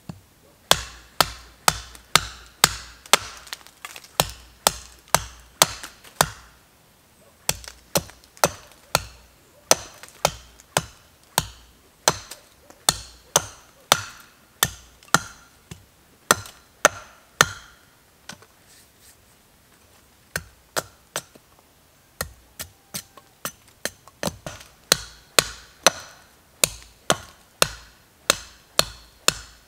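Hatchet hewing an upright log on a chopping stump: sharp chopping strokes of the blade biting into the wood, about two a second, in runs broken by a few short pauses.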